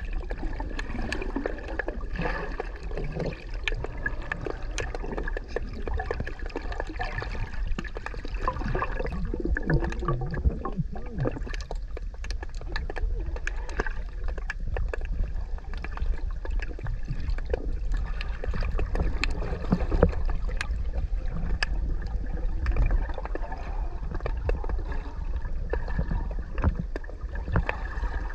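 Underwater sound on a camera's microphone: a low, steady water rumble with many small crackling clicks throughout, and a stretch of gurgling bubbles around the middle.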